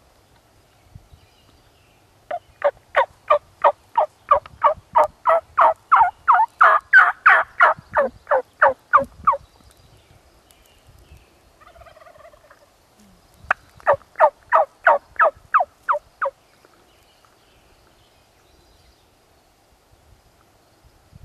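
Wild turkey yelping: a long run of about two dozen evenly spaced yelps, three or four a second, that builds in loudness and then trails off. A shorter run of about a dozen follows after a pause.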